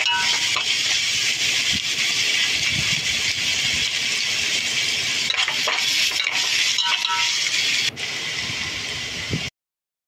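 Noodles sizzling steadily in a hot steel wok, with a metal spatula and a flat metal scoop scraping and clinking against the pan now and then. The sound cuts off suddenly near the end.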